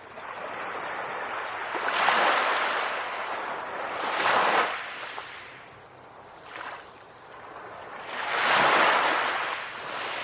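Ocean waves breaking and washing onto a shore. They swell and ebb three times, loudest about two, four and a half and nine seconds in.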